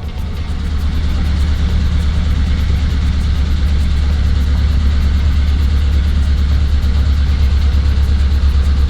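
Hyundai Accent 1.5-litre four-cylinder engine running, building up over the first second and then running steadily with a fast, even ticking. The hydraulic lifter has just been replaced, and a new lifter can keep ticking for a while until it fills with oil.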